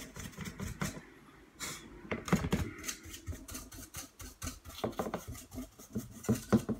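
Irregular clicks and knocks of a fan heater's case and fittings being handled and pushed into place during reassembly.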